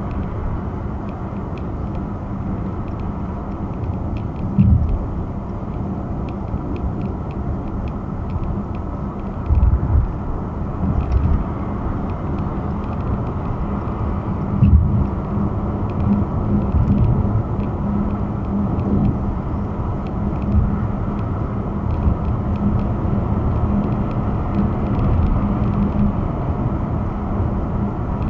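Steady road and engine noise heard inside a car cruising on a motorway at about 65 mph: a continuous low rumble with a steady hum, broken by a few brief low thumps.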